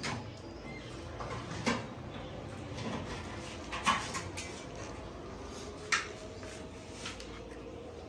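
A few sharp knocks or clatters, the loudest about four seconds in, over steady background noise.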